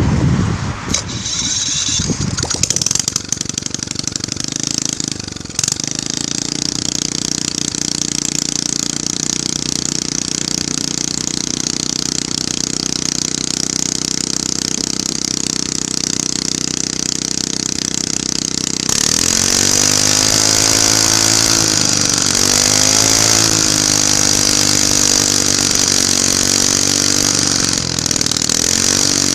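Small generator engine running steadily. About 19 seconds in, its speed rises and wavers up and down for several seconds before settling again.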